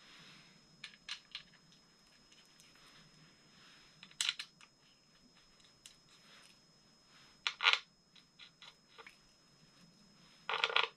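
Small steel timing-cover bolts clinking together in a hand, in a few short rattles with light clicks between; the longest rattle comes just before the end.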